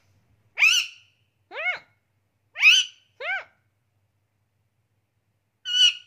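Indian ringneck parakeet giving five short calls, each rising then falling in pitch, the first four about a second apart and the last after a pause of about two seconds.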